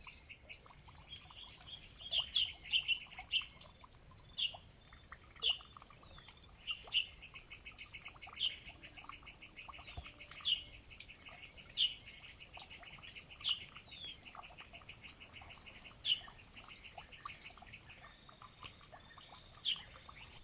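Wild birds chirping, with many short calls every second or so, over a fast, high trill that runs throughout. Near the end a steady high whistling note comes in.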